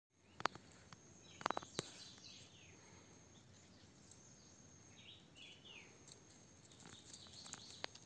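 Faint outdoor ambience with a steady thin high tone. A few sharp clicks and crackles come early and again near the end, and two groups of short high chirps fall between them.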